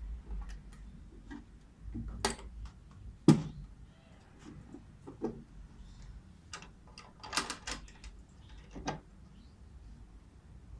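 Scattered light clicks and knocks of the restored steel tool box being handled. The loudest is a sharp knock about three seconds in.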